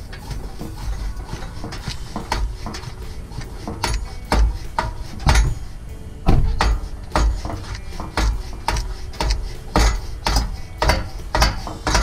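Irregular metallic knocking and rattling from the 2010 Ford F-150's exhaust system, sharp knocks with a low thump about twice a second: the rattle that appeared after the truck's shop repair.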